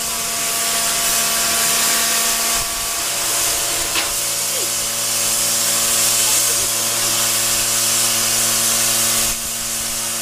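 Standing saddle-tank steam locomotive hissing steadily with escaping steam, over a steady hum of several tones. A single click about four seconds in, and the hiss eases about a second before the end.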